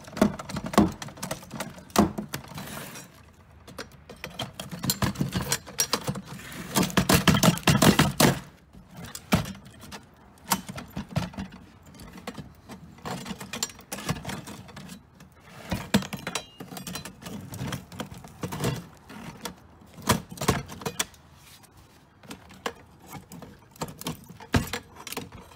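Metal clanking, scraping and rattling as a steel payphone housing is pried at and forced open, with irregular knocks throughout and denser runs of scraping about two seconds in and again around seven seconds in.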